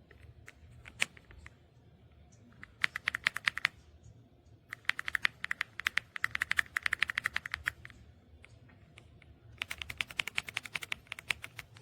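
Typing on an EPOMAKER x Aula F75 gasket-mount 75% mechanical keyboard. A few single keystrokes come first, then three fast runs of key presses, the longest about three seconds in the middle.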